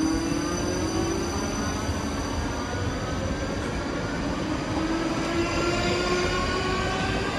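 South Western Railway Class 458 electric multiple unit running along the platform, with a steady rail rumble under a whine from its electric traction motors that rises slowly in pitch as the train picks up speed.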